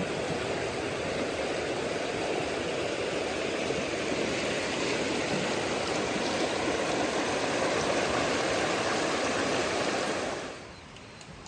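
Steady rush of flowing water, which cuts off suddenly about ten and a half seconds in.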